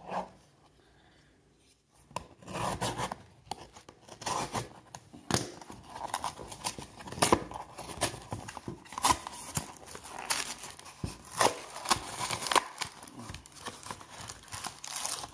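A trading-card pack's wrapper being torn open and crinkled, with repeated rips and rustles starting about two seconds in.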